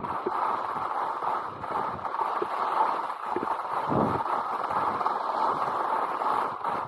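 Skis scraping over firm, rough spring snow, a steady hiss broken by irregular small knocks, with wind on the microphone.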